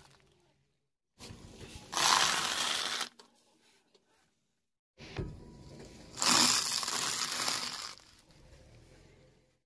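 A car tyre rolling over and crushing crunchy things on concrete, twice: a loud crunching crackle about two seconds in, and a longer one from about six to eight seconds in.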